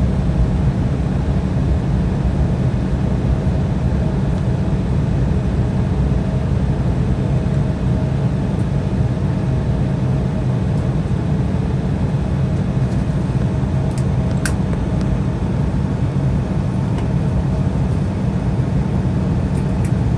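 Steady low rumble of cabin noise inside an Embraer E175 on the ground after landing, with a faint steady hum that fades out about halfway and a few light clicks in the second half.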